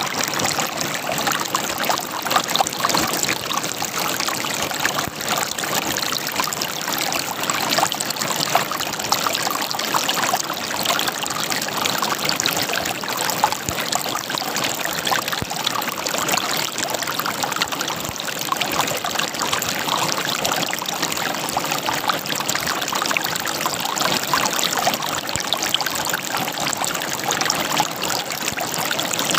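River water running over rocks, a steady gurgling and splashing flow.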